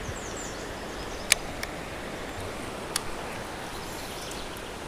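Steady rain falling on a river and its sandy bank, a soft even hiss, with a few sharp clicks, one about a second in and one about three seconds in.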